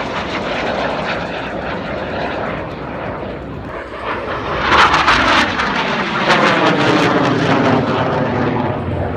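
Twin turbofan engines of an M-346 Master jet trainer passing in flight. The jet noise swells to its loudest about five seconds in, then its pitch falls as the aircraft goes by.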